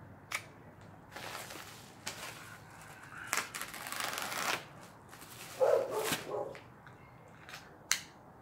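A mail package being opened by hand: irregular bursts of rustling and tearing packaging. A louder, lower-pitched sound comes about six seconds in, and a sharp click near the end.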